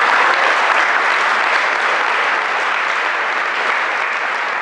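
Audience applauding: many people clapping together in a dense, steady patter that eases off slightly toward the end.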